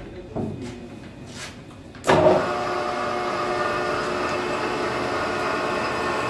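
Metal lathe starting up about two seconds in and then running steadily, its spindle and gearing giving a whine of several steady tones. A few light knocks come before it starts.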